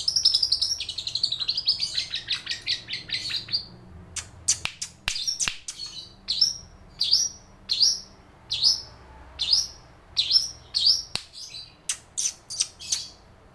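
Long-tailed shrike (cendet) singing loudly, mimicking lovebird calls: a fast, shrill chattering trill for about the first four seconds, then a run of separate sharp calls that drop in pitch, about one and a half a second. A few sharp clicks sound between the calls.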